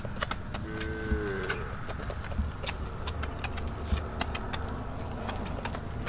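Roasted grasshoppers being eaten by hand: scattered light clicks and crackles of picking them off a leaf and chewing, with a brief hummed "mm" about a second in, over a steady low rumble.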